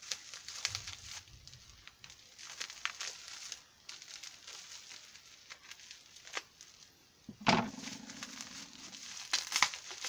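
Plastic bubble wrap being crinkled and pulled apart by hand, with irregular crackles and rustles and one louder sharp sound about three-quarters of the way through.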